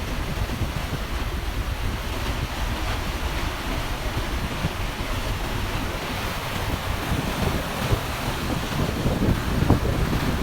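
Wind buffeting the microphone over a steady rush of water on a moving ferry.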